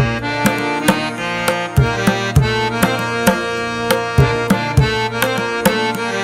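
Background instrumental music: sustained melodic notes over a steady beat of drum strokes.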